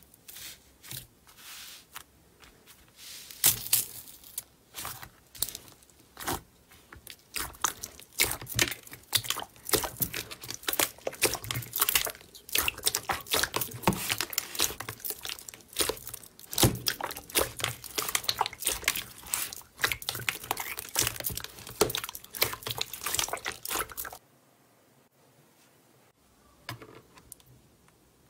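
Hands pressing and squeezing a large mass of black slime, making dense, irregular wet clicks, pops and squelches as air pockets burst. The sounds stop suddenly about three-quarters of the way through, leaving near silence.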